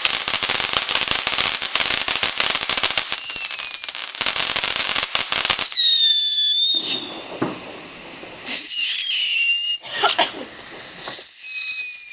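Fireworks: a dense crackle of many small pops for about the first six seconds, then whistling fireworks shrieking on high held tones several times, some dropping slightly in pitch.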